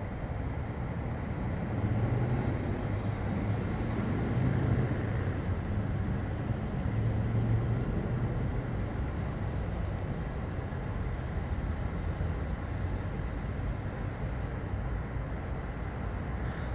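Steady low rumble of distant city traffic, swelling slightly a couple of seconds in.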